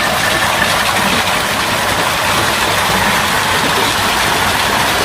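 Heavy hail pelting a car's roof and windshield in a dense, steady, loud clatter, heard from inside the car.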